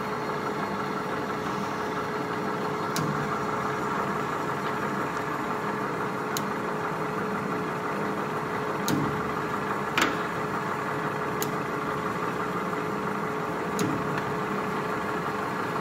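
1980 LeBlond Regal Servo Shift engine lathe running under power, a steady hum and whine from its motor and headstock gearing. Sharp clicks sound about six times, the loudest about ten seconds in, as the apron feed levers are shifted. It sounds really nice.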